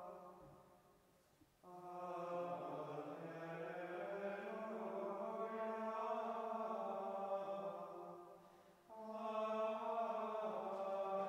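Dominican friars singing plainchant, long drawn-out sung phrases. The singing starts about a second and a half in, breaks briefly about eight and a half seconds in, and goes on again.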